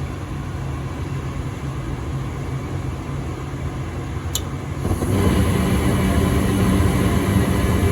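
Goodman gas furnace humming steadily, then a brief high click about four seconds in, and the burners light with a louder rushing sound that runs on. This is one of the furnace's short cycles, which the owner puts down to debris on the flame sensor rod.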